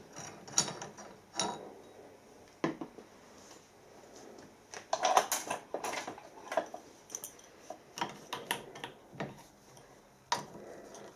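Metal parts of a pipe cutter clinking and knocking as it is handled and taken apart, in scattered small clicks with a busier run of them about five seconds in.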